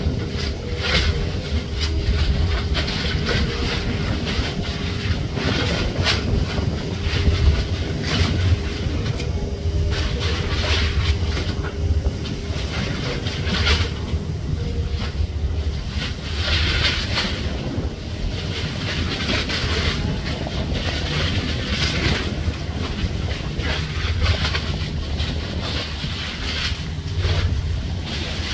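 Wind buffeting the microphone in uneven gusts, over a faint steady hum from the engines of a passing naval minehunter and its tug; the hum fades about halfway through.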